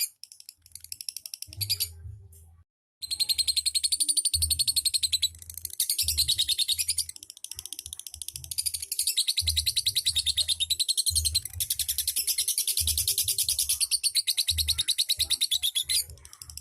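Lovebird singing in long, very rapid chattering trills (the 'ngekek' style), each run lasting several seconds, with a brief break about two and a half seconds in.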